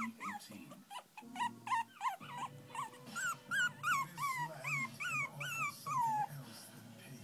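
Chihuahua puppy whimpering: a run of short, high cries, each falling in pitch, two to three a second, stopping about six seconds in.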